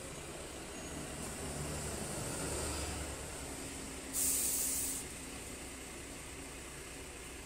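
A city bus runs past close by with a low engine rumble that swells and fades. About four seconds in, a sharp hiss of released compressed air lasting under a second, typical of a bus's air brakes.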